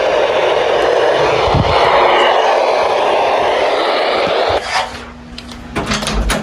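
Loud, steady vehicle noise that cuts off suddenly about four and a half seconds in, followed by scattered clicks and a faint low hum.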